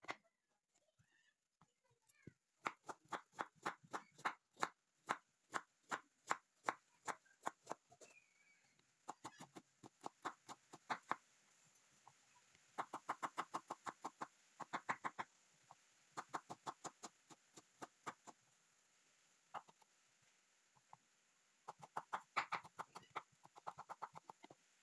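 Kitchen knife chopping vegetables, a carrot among them, on a wooden cutting board: runs of quick, even taps of the blade on the board, about three to five a second, broken by short pauses.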